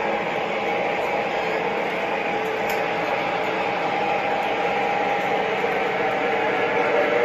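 O scale model trains running on the layout: a steady rolling rumble on the track, with a steady whine over it.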